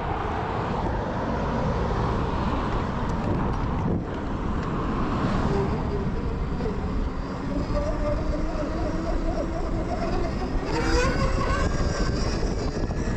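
Zero FX electric motorcycle ridden off-road, with heavy wind rush on the microphone and a low rumble. A motor whine comes in about halfway through and rises in pitch a little before the end as the bike speeds up.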